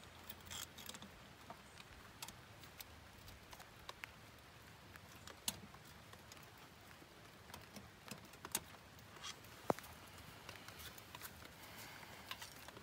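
Faint, scattered small metallic clicks and ticks of snap ring pliers and a snap ring being worked up into a tractor's front axle knuckle, with quiet in between.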